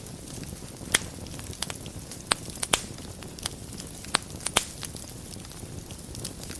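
Fire burning in a fireplace: a steady low rush of flames with sharp crackles and pops every second or so, the loudest about a second in and a cluster between two and five seconds.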